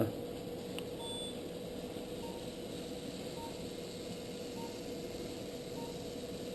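Steady hum of running arthroscopy equipment, with one constant tone in it. Soft, short beeps repeat evenly about every 1.2 seconds, like an operating-room patient monitor sounding the pulse.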